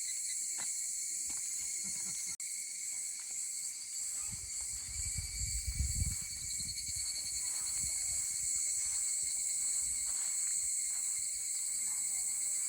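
Steady chorus of insects chirring at several high pitches at once. A low rumble rises from about four seconds in and fades after six seconds.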